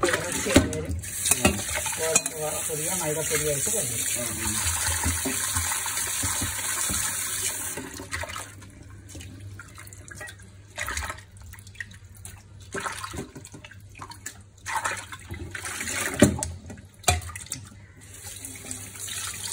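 Tap water running into a steel bowl of fish pieces in a kitchen sink for about the first eight seconds; then water sloshing in the bowl and being poured off, with scattered knocks of the steel bowl against the sink.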